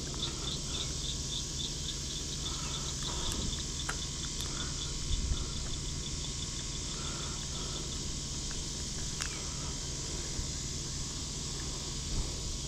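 Insects shrilling in a steady high hiss, with a cricket chirping in a quick even rhythm that stops about eight seconds in. A couple of faint sharp clicks.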